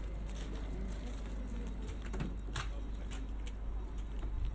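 Railway platform ambience: a steady low rumble with scattered light clicks and knocks, the sharpest knock about two and a half seconds in.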